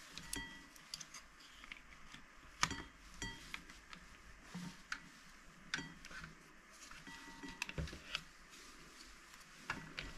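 Irregular small clicks and knocks of a plastic Quran reading pen being handled as its opened casing is closed up, with its charging cable moved about on the bench mat.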